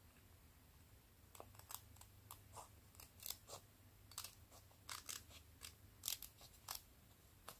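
Small scissors snipping around pieces of masking tape stuck on a clear sheet: a quiet, irregular run of a dozen or so short, crisp snips, starting about a second and a half in.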